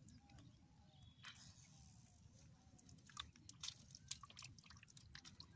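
Faint wet squelching and dripping of muddy water as a hand gropes in a shallow mud pool and a catfish thrashes. A cluster of small sharp wet clicks comes about three to four and a half seconds in.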